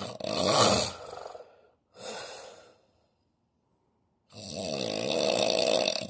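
A man snoring in his sleep with his mouth open: three snores, a loud one at the start, a shorter, quieter one about two seconds in, and a long one beginning a little after four seconds.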